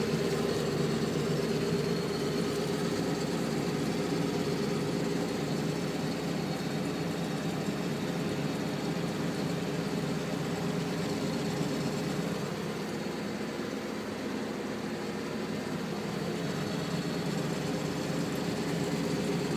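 New Holland T6050 tractor engine running steadily while pulling a trailed sprayer across the field, heard from inside the cab as an even hum.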